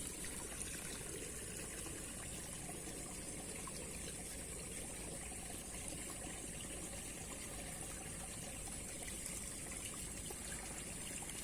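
Steady rush of flowing river water, running evenly without a break.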